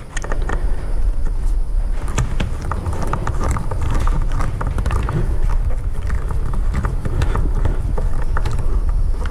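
Hand screwdriver starting a screw into a Corvette sun visor's mounting: irregular small clicks and scraping as the screw is turned in, over a steady low rumble.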